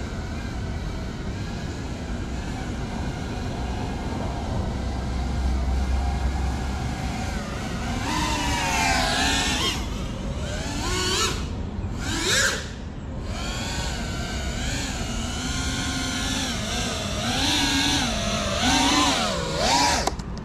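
Whine of a GEPRC CineLog35 cinewhoop's motors and propellers in flight, several pitches rising and falling together as the throttle is worked, with the widest swings about halfway through and again near the end. The whine stops just before the end.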